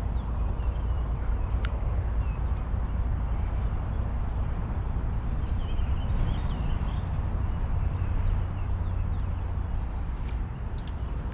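Outdoor ambience: a steady low rumble with faint bird chirps, mostly in the middle, and a few light clicks.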